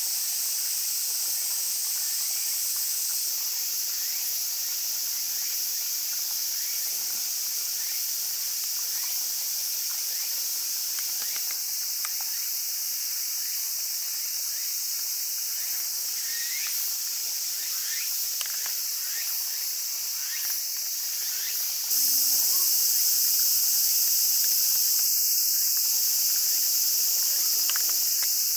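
Dense chorus of cicadas, a steady high-pitched buzz that jumps louder and broader about three-quarters of the way through. Faint short rising chirps sound underneath.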